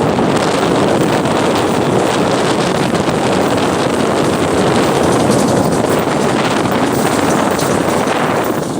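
Loud, steady rushing noise of a road vehicle, with wind buffeting the microphone.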